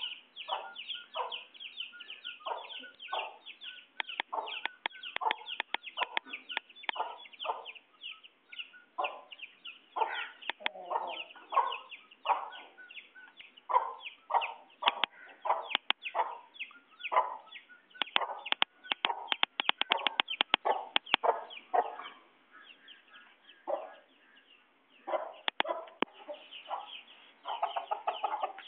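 Chickens, a rooster and hens, clucking in a continuous run of short, rapidly repeated calls, with a run of sharp clicks about midway.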